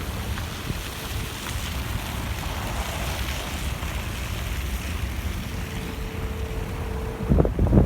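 Snowstorm wind buffeting the microphone in a steady low rumble, with a hiss that swells and fades in the middle; the gusts grow much louder near the end.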